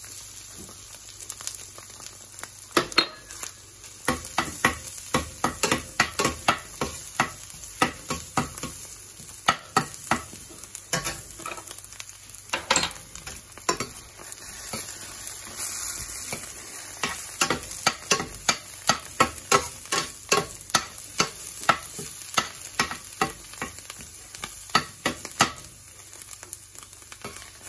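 Minced garlic sizzling in hot oil in a stainless steel skillet, sautéing, while a slotted metal spatula stirs it and scrapes and clicks against the pan bottom in repeated sharp, irregular clicks.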